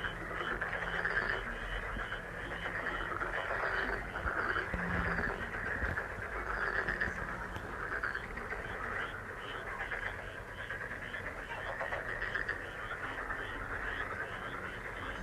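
Chorus of many frogs calling together: a dense, steady trilling mass with quick repeated chirps several times a second over it.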